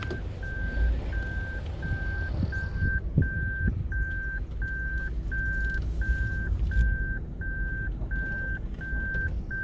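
A vehicle's electronic warning beeper sounding a steady, evenly spaced beep at one pitch about twice a second, over a low engine and road rumble.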